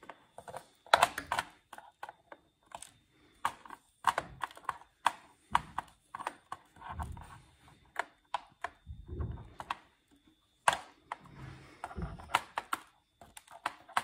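Irregular clicks and taps of metal tweezers and tongs against a plastic tray as small seeds are picked up, with a few duller, lower knocks in between.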